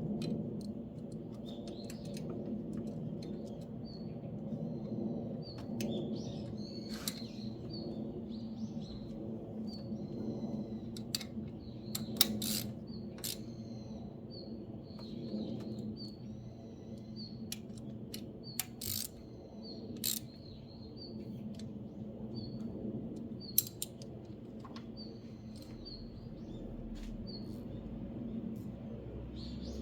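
Small birds chirping repeatedly over a steady low hum, with scattered sharp clicks, two of them louder, about twelve seconds in and near the end.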